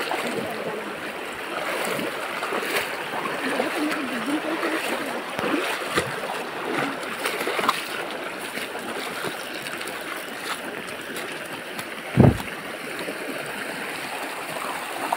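Shallow stream rushing steadily over stones, with a single short low thump about twelve seconds in.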